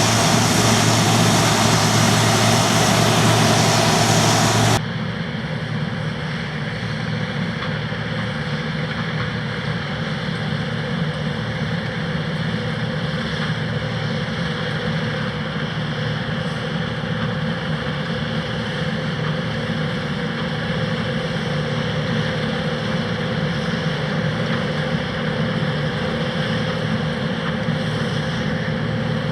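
John Deere 2264 combine harvester running while cutting barley, a steady diesel engine hum with machinery noise. About five seconds in, the sound drops suddenly to a quieter, steadier hum.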